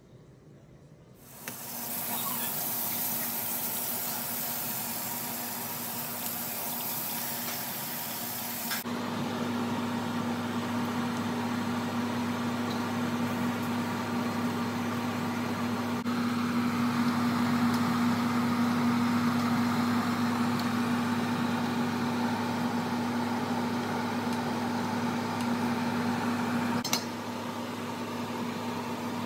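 Large pots of water at a rolling boil, bubbling and hissing as whole plum tomatoes are blanched, with a steady hum underneath. The sound starts about a second in and changes abruptly twice.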